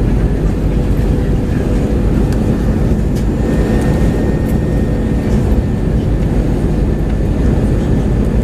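Steady cabin noise inside an Airbus A320 on approach: an even, low roar of engines and airflow, with a faint steady tone over it.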